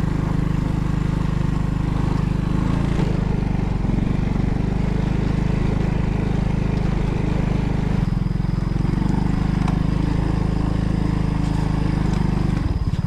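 A small engine running steadily. Its pitch changes a couple of times, and there is a short drop just before the end, as from a vehicle being ridden.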